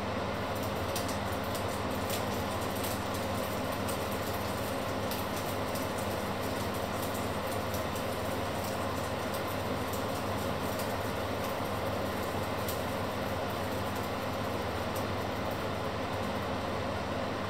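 A steady mechanical hum with an even rushing noise and faint scattered ticks.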